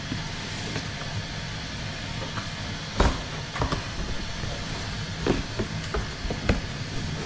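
Large cardboard box being turned and handled on a granite countertop: several knocks and scrapes of cardboard, the loudest about three seconds in, over a steady rushing hiss and low hum.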